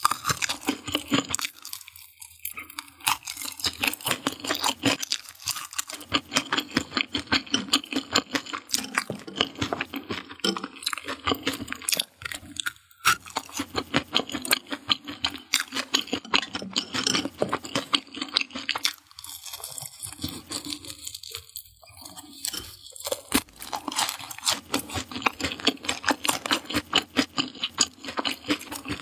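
Close-up crunching and chewing of deep-fried skewered food. The fried coating crackles in many quick, crisp crunches, with a few short pauses between bites.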